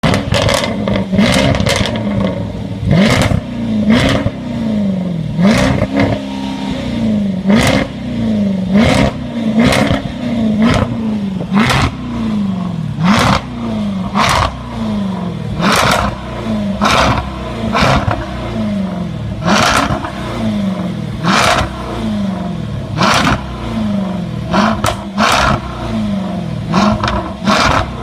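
Jaguar SVR's supercharged 5.0-litre V8 blipped over and over, about one short rev a second, the pitch rising and falling with each. Sharp exhaust crackles and pops follow each throttle lift.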